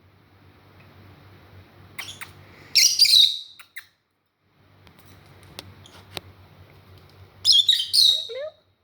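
Pet parrots calling with short, sharp squawks: a burst about two to three seconds in and another near the end, with a few light clicks between.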